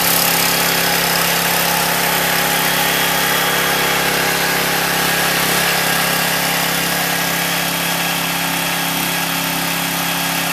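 Workforce pressure washer's 163 cc overhead-valve single-cylinder petrol engine running steadily at constant speed.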